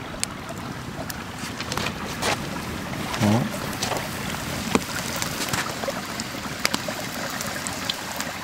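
Trout rangoons deep-frying in hot oil: a steady sizzle with many small crackles and pops.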